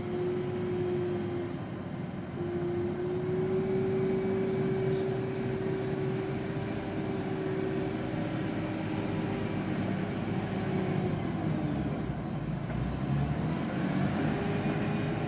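JCB 435S wheel loader (loading shovel) driving with its diesel engine running, carrying a steady whine that drops away about eleven seconds in and returns near the end.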